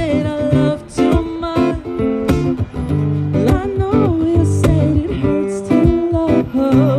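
Acoustic guitar strumming accompanying a man singing a pop love song, his voice bending through melodic runs between lines.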